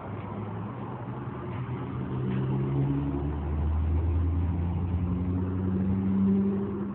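Pontoon boat's motor running steadily, getting louder and lower-pitched about two seconds in.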